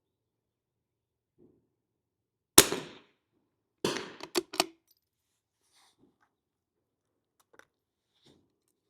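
.22 LR rimfire rifle shot, a single sharp crack about two and a half seconds in. About a second later comes a second crack, followed quickly by two sharp clicks.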